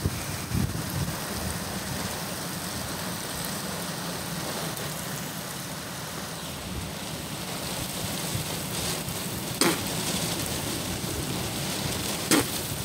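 Hurricane Laura's wind and rain: a steady rush of driving rain and wind on the microphone, with two sharp knocks in the second half.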